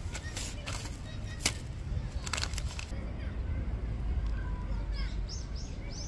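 Paper food wrapper rustling and crinkling in several short bursts over the first few seconds. Then a small bird chirps in quick repeated high notes near the end, over a steady low wind rumble.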